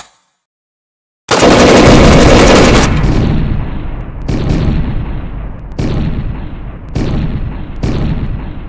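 Gunfire: about a second in, a rapid burst of shots lasting about a second and a half, then four single shots about a second apart, each trailing off in an echo.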